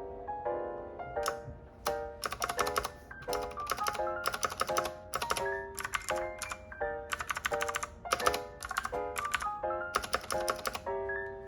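Mechanical keyboard keys clacking in quick irregular runs of typing over light background music of short melodic notes.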